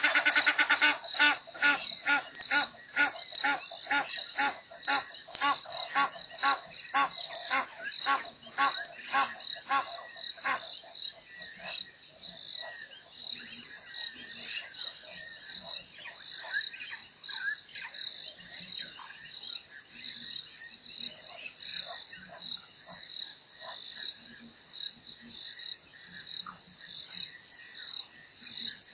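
Night chorus at a waterhole: insects, likely crickets, chirp in a high, steady, regular pulse throughout. Frogs call in rapid pulsed trains over the first ten seconds or so, then fade to scattered calls.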